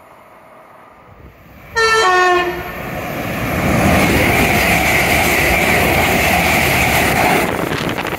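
Class 350 Desiro electric multiple unit sounding a short horn blast as it runs through at speed, the horn's pitch falling as it goes past. Then the loud rush and rumble of the train passing close by, which cuts off abruptly near the end.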